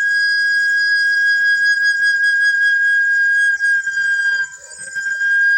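Pan flute sounding a long, clear, high note, held steadily, with a short break about four seconds in before the note comes back. The high pipes have thickened walls to give a cleaner tone.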